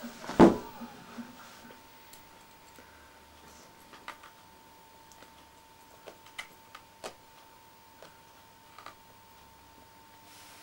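A kitten playing on a carpet: a thump about half a second in, then scattered light clicks and taps, over a faint steady whine.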